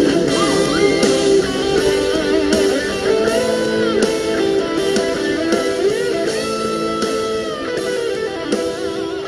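Instrumental ending of a Khmer pop song, with an electric guitar playing a bending lead line over the band, gradually getting quieter.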